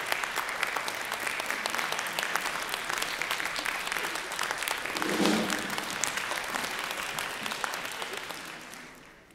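Audience applauding, a dense patter of many hands clapping that dies away near the end. A brief voice from the audience rises above the clapping about halfway through.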